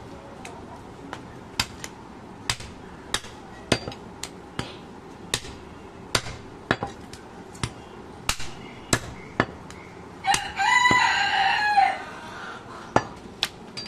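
A heavy cleaver chops goat meat and bone on a wooden chopping block, a steady run of sharp single chops about one to two a second. About ten seconds in, a rooster crows once, a call just under two seconds long, and it is the loudest sound here.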